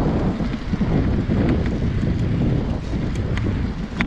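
Wind buffeting the microphone of a camera on a moving bicycle: a steady, dense low rumble, with a few faint clicks.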